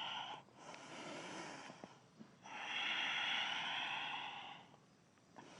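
A woman breathing slowly and audibly while holding downward-facing dog in a vinyasa flow, in long, hissing breaths. The longest and loudest breath starts about two and a half seconds in and lasts about two seconds.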